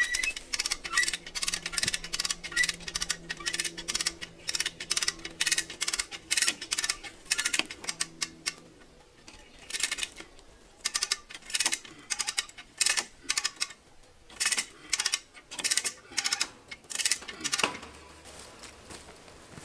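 Hand ratchet being pumped to tension the brace wire of a wooden H-brace fence: sharp metal ratchet clicks in quick bursts, about two or three a second, with a short pause midway and fewer clicks near the end.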